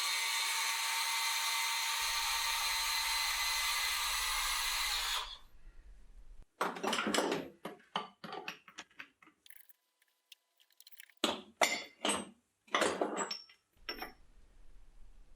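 A drill-type power tool runs steadily and cuts off suddenly about five seconds in. After a pause comes a string of short knocks and scrapes, a few per second, with gaps between them.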